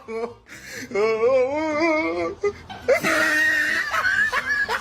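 A crying, wavering voice: one long cry about a second in whose pitch wobbles steadily up and down, followed by several higher drawn-out cries.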